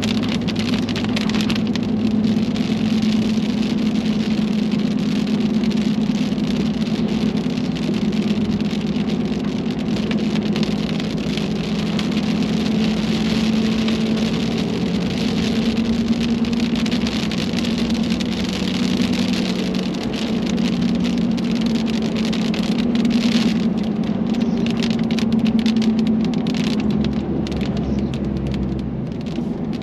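Rain pattering on a car's roof and windshield over the steady hum of the car's engine and tyres while driving; the rain thins to scattered drops in the last few seconds.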